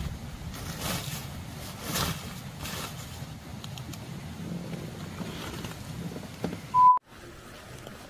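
Light knocks and rustling as a hard-shell box on a pickup's bed rack is handled and latched, over a low steady rumble. Near the end a short electronic beep sounds, then the sound cuts off abruptly.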